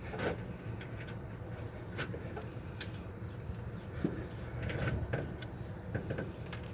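Scattered light clicks and taps of small parts and tools being handled while a valve guide seal is fitted on a cylinder head, over a low steady hum.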